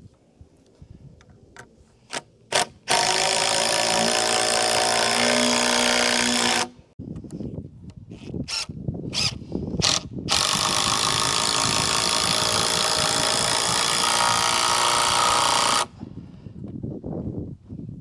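A power driver sinking long screws into 2x6 rafter lumber. It makes two long loud runs, one of about four seconds and one of about five and a half, and each cuts off abruptly. A few sharp taps and clicks come before and between the runs.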